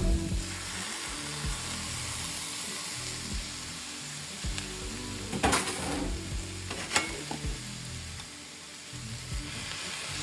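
Brussels sprouts and other vegetables sizzling steadily in a hot frying pan. There are two sharp knocks about halfway through.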